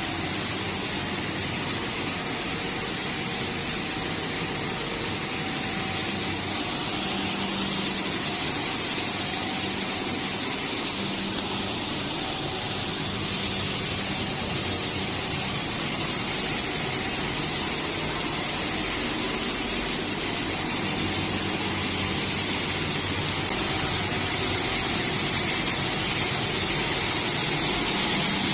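Fortified rice kernel plant machinery running: electric motors, vibrating conveyor troughs and a blower making a steady hum under a strong hiss. The level shifts slightly a few times.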